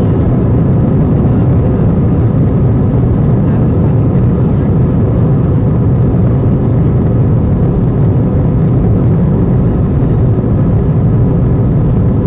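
Cabin noise of an Airbus A320-232 taxiing: a loud, steady low rumble from its IAE V2500 engines at taxi power, with a faint steady tone above it.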